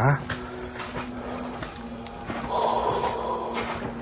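Crickets chirping steadily in a high, pulsing trill. A soft rustling noise rises about two seconds in.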